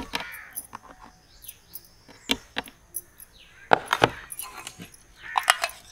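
Metal spoon clinking and knocking against a plastic blender jar and ice-cream tub as scoops of ice cream are dropped in: a handful of sharp clicks spaced about a second apart.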